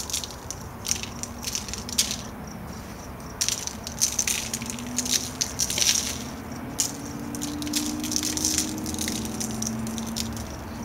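Coarse sea salt being pinched from a small glass bowl and sprinkled over raw steaks: irregular short bursts of grains scraping and clicking in the glass and scattering onto the meat and paper.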